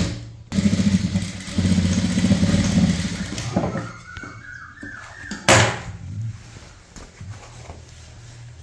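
Electric sewing machine running in two stitching runs of about a second and a half each, then a few short rising tones and a single sharp click about five and a half seconds in as the stitching stops.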